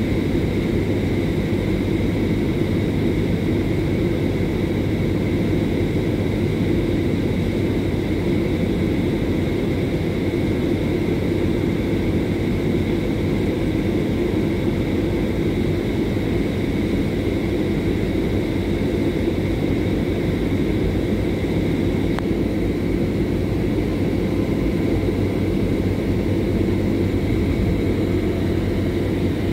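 Steady cabin drone of a coach bus cruising on the highway: engine and road rumble with a constant low hum and a steady high whine above it.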